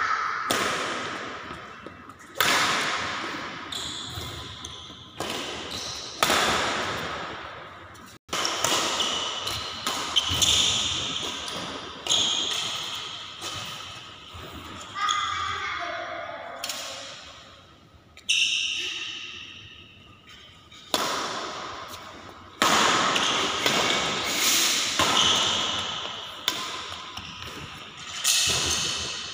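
Badminton rally: sharp smacks of rackets hitting the shuttlecock about every one to two seconds, each ringing out in the hall's echo.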